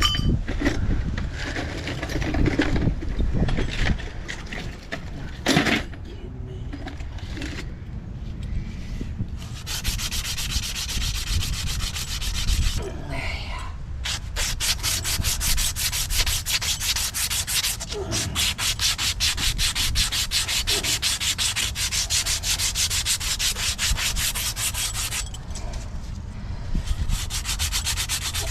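Rapid, even scraping or sanding on a hard surface, starting about ten seconds in, pausing briefly, and stopping a few seconds before the end. Before it come scattered handling noises and a sharp knock.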